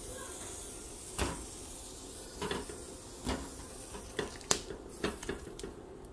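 Roasted serrano chiles being picked off a hot nonstick griddle pan and dropped into a clay dish: about eight light, scattered taps and knocks of chiles, fingers and pan, over a faint steady hiss that fades out about two-thirds of the way through.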